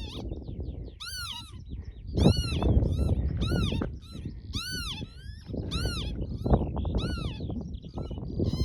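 Northern lapwings calling, a pair giving their wheezy "pee-wit" calls over and over, each a quick rise and fall in pitch, about eight calls, with a low rumble underneath.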